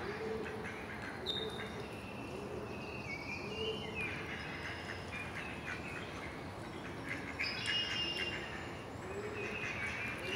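Birds chirping and calling against a steady outdoor background noise, with a low call repeating about once a second.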